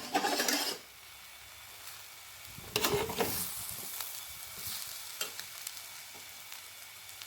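Spatula stirring and scraping young jackfruit stir-fry in a hot pan, with a faint sizzle. There are louder bouts of scraping in the first second and again about three seconds in, then lighter taps.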